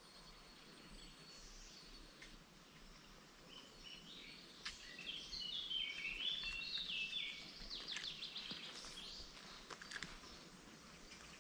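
Faint birdsong over a low outdoor hiss: near the middle, a bird sings a run of high notes that step down in pitch over about four seconds. A few light clicks come in between.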